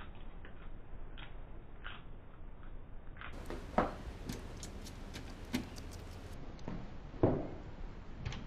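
Scattered light clicks and taps, with two louder dull knocks about four seconds in and about seven seconds in.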